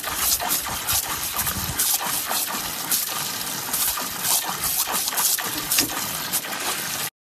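A garden hose jet spraying into a plastic kiddie pool: a steady hiss with irregular splashes as a Jack Russell terrier snaps and bites at the stream. The sound cuts off abruptly near the end.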